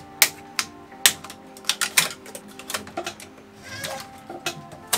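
Irregular sharp plastic clicks and snaps: cable ties holding down a 3D printer's print head and packing being cut with flush cutters and pulled free, about a dozen clicks with a short rustle just before the end. Background music plays underneath.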